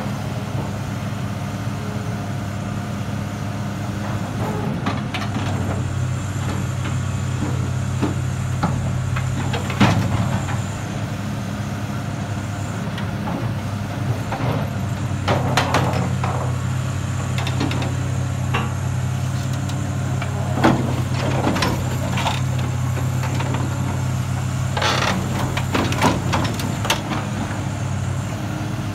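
Hydraulic excavator's diesel engine running steadily under load while its scrap shear grips and cuts a steel truss, with several sharp metallic clanks and a few longer creaks and screeches of steel being bitten.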